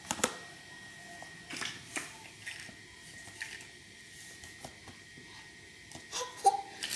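Soft scattered rustles and light taps of a child's hands pressing and scraping kinetic sand in a clear plastic tub, over a faint steady hum.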